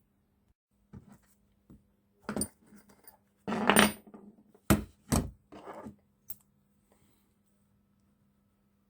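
Small metal parts and tools being handled on a workbench: a string of clinks and knocks, with two sharp clicks about halfway through, over a faint steady hum.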